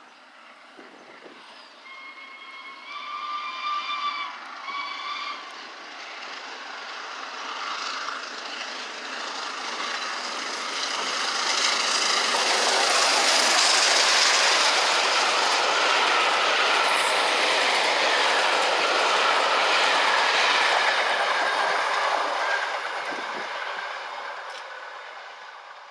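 Peppercorn A1 Pacific steam locomotive 60163 Tornado sounding its whistle twice on the approach, a longer blast then a short one. It then runs past with its train of coaches, getting loud as it passes and fading as it draws away.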